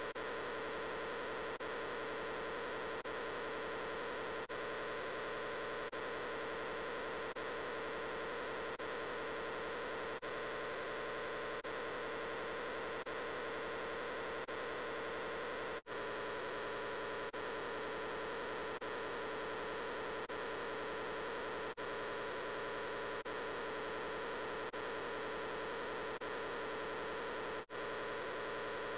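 The 'I'm Peppa Pig' voice clip layered over itself so many times that it has blurred into a steady static-like hum with no words left to make out. Faint regular seams come about every second and a half, and there are a few brief dropouts.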